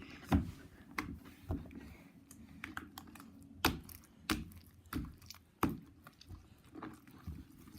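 Scattered light clicks and knocks of small objects, such as bottles and containers, being handled and set down on a hard surface, at an irregular pace with a few sharper knocks in the middle.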